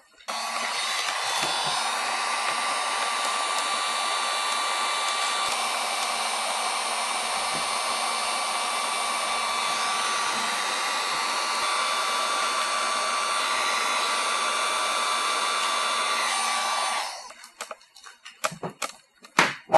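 Electric heat gun running steadily, its fan blowing hot air with a steady hum and a faint whine, heating the work-hardened aluminum panel so the dent can be pulled. It switches on just after the start and shuts off about 17 seconds in, followed by a few sharp clicks of tools being handled.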